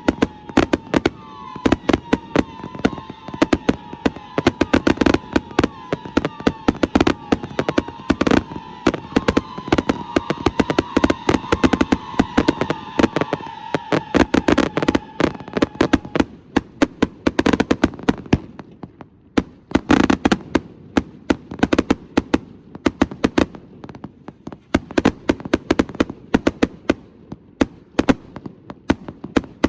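Astroboy consumer fireworks firing a rapid barrage of sharp bangs and crackles. A dense whistling runs over the bangs through the first half or so and cuts off about sixteen seconds in, after which the bangs carry on alone.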